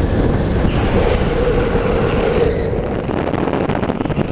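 Wind rushing over the microphone on a moving downhill longboard, over the rolling noise of urethane longboard wheels on asphalt. A steady tone rises out of the noise from about one second in and fades about two and a half seconds in.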